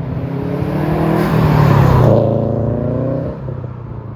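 Subaru WRX STI's turbocharged EJ flat-four with an aftermarket exhaust, driving past under power. It gets louder to a peak about halfway through, then fades as the car moves away.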